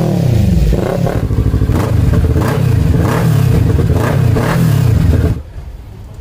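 Kawasaki sport motorcycle engine revved again and again through an aftermarket exhaust, its pitch rising and falling with each throttle blip. The sound cuts off abruptly about five seconds in.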